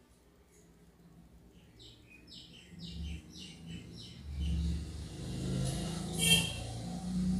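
Water poured from a glass into a pan of thick chicken gravy, splashing and gurgling into the liquid and loudest about six seconds in. Before the pour, a quick run of short high chirps.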